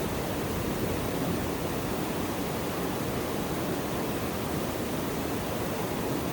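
Steady rush of a waterfall: an even, unbroken roar of falling water.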